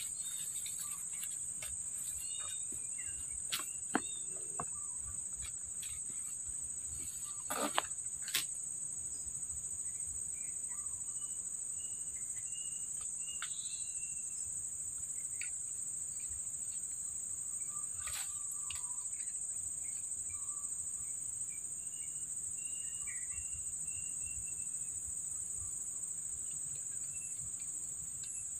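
Steady high-pitched drone of insects, with a few sharp clicks and knocks about four and eight seconds in and again near eighteen seconds.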